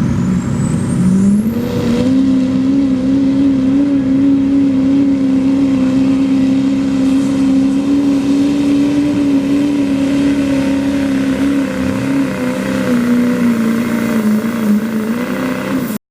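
Open-class diesel pulling truck engine climbing to full throttle over the first couple of seconds, with a high whine rising with it. It then holds steady at high revs under the load of the sled, sagging slightly near the end before it cuts off abruptly.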